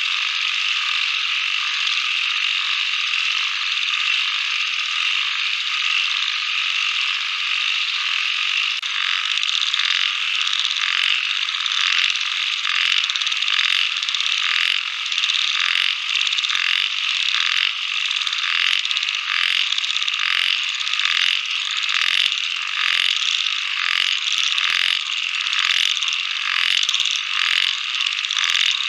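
A dense chorus of small calling animals, a continuous high, rattling drone. From about nine seconds in it swells and fades in regular pulses, about once or twice a second.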